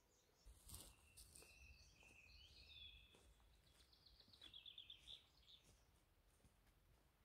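Faint woodland birdsong: a songbird's whistled phrases, with a quick trill about halfway through, over a low rumble. A few sharp clicks about a second in.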